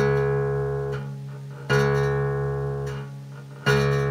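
Open low sixth string of a guitar, tuned down to D for D-A-D-G-A-D open tuning, plucked three times about two seconds apart, each note ringing and fading.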